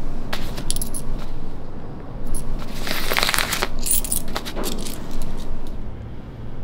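Small metal coins clinking against each other as a hand picks them up one by one off a paper receipt, a handful of light, ringing clicks with a longer scraping stretch near the middle.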